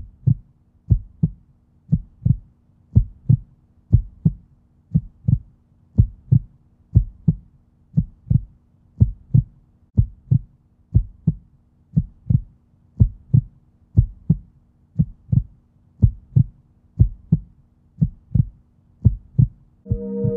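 Heartbeat sound effect: a steady lub-dub double thump about once a second, over a faint low hum.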